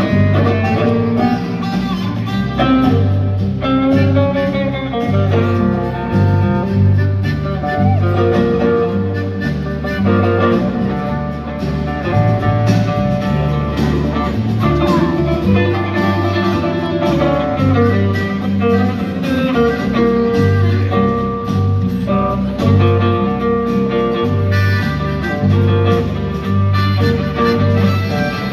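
Live country band playing an instrumental break, a guitar taking the lead over a steady pulsing bass line.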